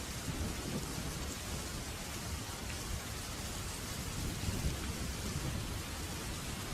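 Rain falling steadily, a continuous hiss, with low thunder rumbling that swells about half a second in and again around four to five seconds in.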